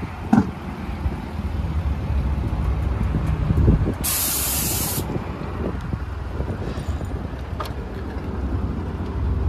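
Modified Nissan Skyline's engine idling with a steady low rumble. About four seconds in comes a sharp hiss lasting about a second.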